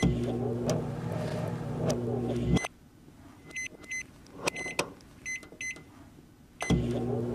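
Microwave oven running with a steady hum that cuts out after about two and a half seconds. In the quiet that follows come several short, high electronic beeps in small groups, then the hum starts again near the end.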